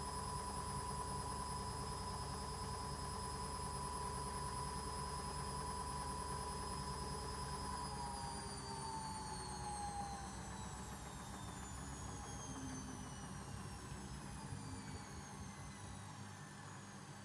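Arçelik washing machine spinning with a steady high motor whine. About halfway through, the whine falls steadily in pitch as the drum winds down from the spin.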